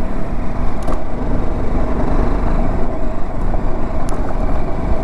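Motorcycle riding at a steady road speed: the engine runs evenly under a heavy, steady rush of wind on the microphone.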